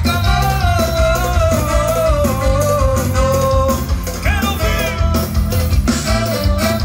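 Live band music over a PA system: a steady bass and drum beat under a lead line that holds one long, wavering note for the first few seconds, then a short phrase that slides up and back down.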